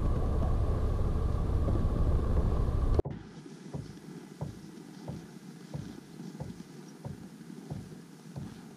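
A loud, steady low vehicle rumble for about three seconds that cuts off abruptly. It is followed by footsteps on packed snow, about one and a half steps a second.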